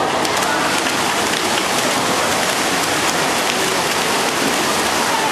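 A loud, steady wash of noise in an indoor swimming hall: backstroke swimmers splashing hard in a sprint to the wall, mixed with the crowd cheering.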